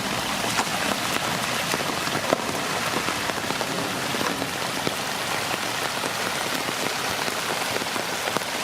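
Steady rain falling and spattering on hard surfaces, an even hiss dotted with individual drop splashes, one sharper drop hit about two seconds in.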